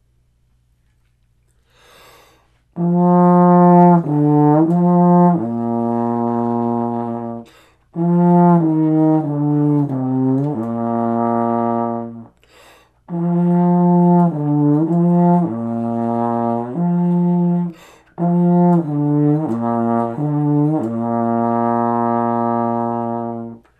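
Trombone playing a slow warm-up exercise: four phrases of stepwise notes, each ending on a long held note, with a quick breath between phrases. It starts after a few seconds of near quiet.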